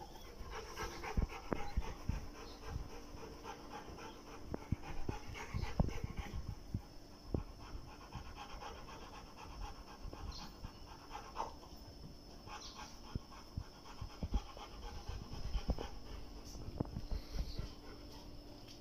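A Rottweiler panting with its mouth open, with scattered light knocks and thumps around it.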